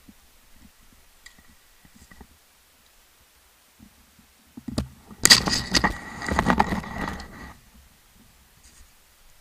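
An action camera being handled at close range: a burst of loud rubbing, scraping and clicking for about two seconds, starting about five seconds in, with a faint low rumble before it.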